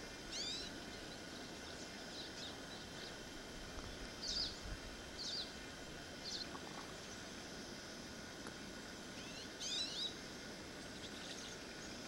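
Short, high bird chirps, a handful of scattered calls over a steady background hiss; the loudest come about four and ten seconds in.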